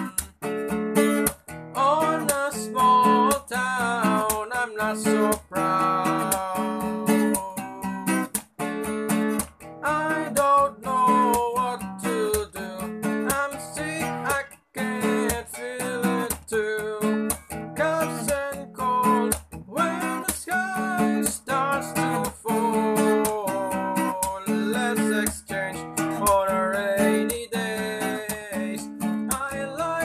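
Acoustic guitar strummed in a steady rhythm, with a man singing a song along with it.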